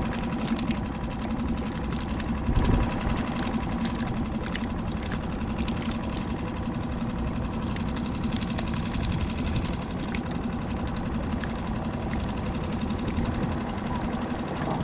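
Small boat motor idling steadily with an even hum.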